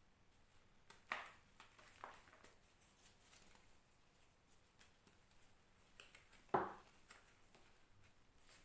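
Reformed gym chalk crunching and crumbling as it is pressed, in a few short crackly crunches. The loudest comes about six and a half seconds in, with faint ticks between.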